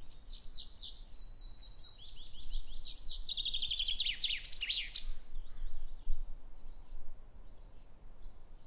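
Wild songbirds singing: repeated falling whistled phrases and a fast trill that is loudest a few seconds in, with high thin notes running through, over a faint low rumble.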